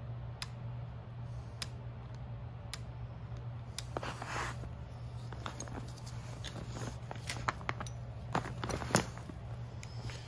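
Cast-iron lathe carriage and cross-slide assembly being handled with gloved hands: a few sparse light clicks, then a run of metal knocks and clinks as it is turned over and set down, the loudest knock near the end. A steady low hum runs underneath.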